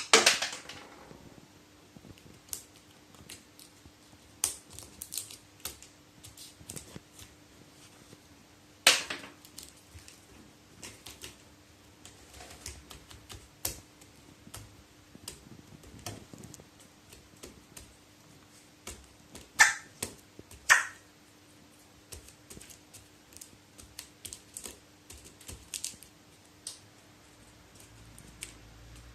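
Pet crow pecking and moving about on a hard surface: irregular light clicks and taps. A few louder sharp snaps stand out, the loudest right at the start, one about nine seconds in, and two about a second apart around twenty seconds in.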